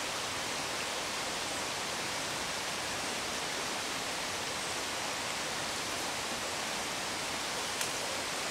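Steady rushing of a small stream's flowing water, with one faint click near the end.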